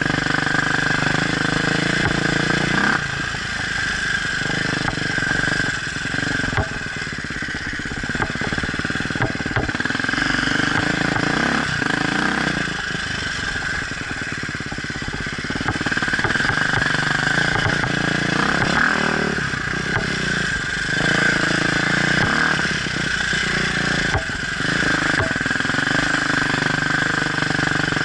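Off-road dirt bike engine running under changing throttle, its note rising and dropping several times as the bike is ridden.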